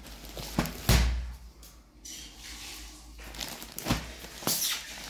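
Handling sounds: a few knocks and low thumps with some rustling as plastic-wrapped bedsheet packets are moved about.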